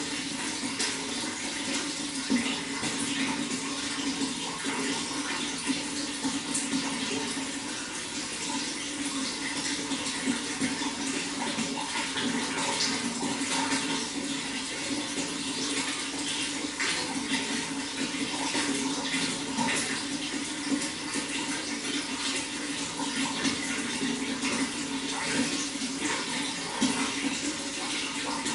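Running water flowing steadily, an even rushing with many small splashes throughout.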